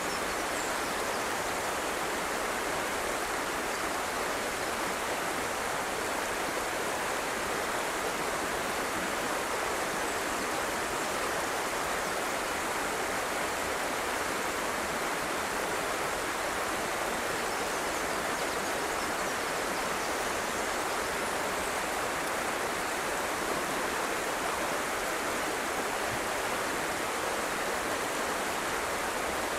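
River water rushing steadily over a shallow, rocky riffle.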